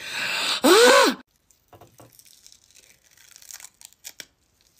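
A young woman's sharp hissing breath followed by a short pained cry whose pitch rises and falls, as she pulls off glued-on false eyelashes. Faint crackling of the lashes and adhesive peeling follows.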